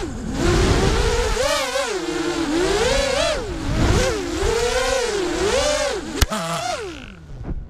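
FPV quadcopter's brushless motors and propellers whining, the pitch rising and falling quickly with the throttle. A sharp knock comes about six seconds in, after which the whine drops in pitch and fades.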